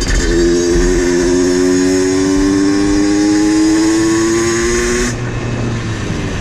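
Two-stroke motorcycle engine revved and held high, its pitch creeping slowly upward, then dropping abruptly back to idle about five seconds in.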